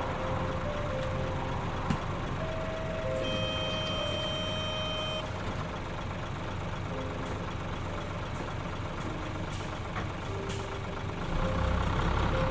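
Combine harvesters running steadily, a deep continuous engine and machinery drone. A steady electronic warning beep sounds for about two seconds, a few seconds in. The machine noise grows louder near the end.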